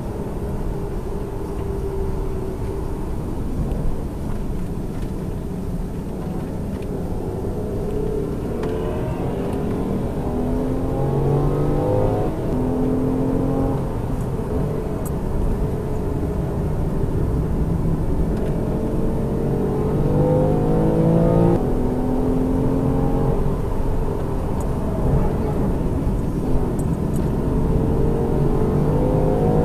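Car engine accelerating through the gears on a circuit: its pitch climbs slowly and drops suddenly at each upshift, about twice, over steady road and tyre rumble.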